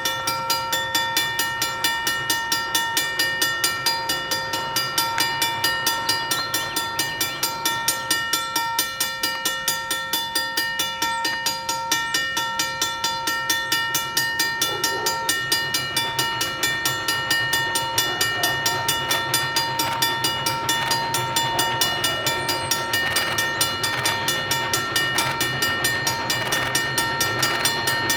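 ALCO 2-8-2 Mikado steam locomotive working steadily, its exhaust beating in an even rhythm of about three chuffs a second. A steady ringing tone sits over the beats.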